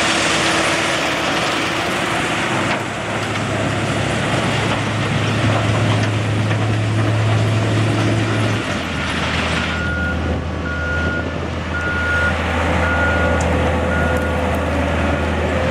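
Converted sugar cane harvester running under load, chopping willow into billets, a dense rushing noise over a steady engine hum. About two-thirds of the way in the engine note drops and the rushing falls away, and a reversing alarm starts beeping about once a second.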